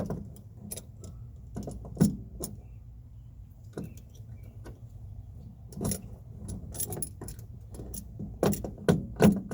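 Small metal parts and a hand tool clicking and clinking against each other while a door striker pin is fitted into the jamb: scattered light clicks, a louder knock about two seconds in, and a quicker run of clicks near the end.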